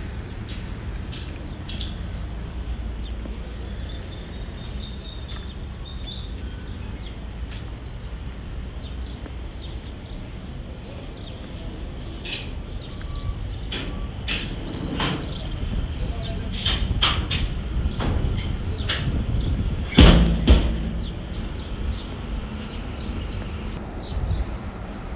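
Outdoor background noise: a steady low rumble with scattered short, sharp sounds that get busier after about twelve seconds, and one heavy thump about twenty seconds in.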